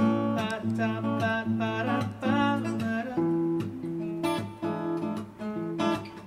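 Acoustic guitar strummed and picked, its chords ringing on between strokes.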